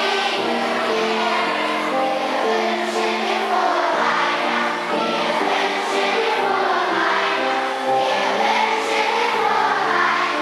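A large group of schoolchildren singing a Christmas song together as a choir.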